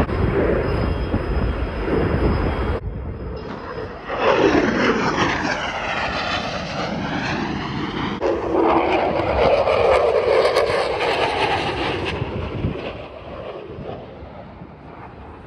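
Jet aircraft passing overhead: a loud roar that sweeps down and back up in pitch as it flies by, then a second stretch of roar that fades away near the end, with abrupt cuts between clips.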